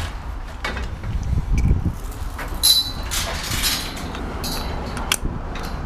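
Metal shopping trolley rolling over tarmac, its wheels rumbling and the wire cage rattling, with a sharp clack about five seconds in.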